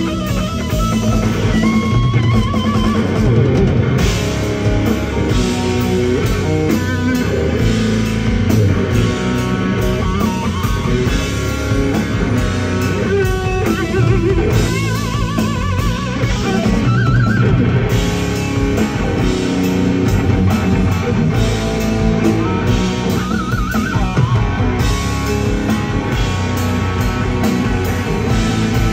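Live rock band playing loud: a lead electric guitar holds bent notes with wide vibrato over a drum kit. No singing.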